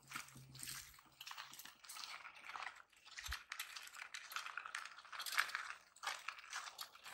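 Electric scooter riding over a bumpy dirt road: irregular crackling and rattling from the tyres on loose grit and the shaken bodywork, with one brief low thump a little past the middle.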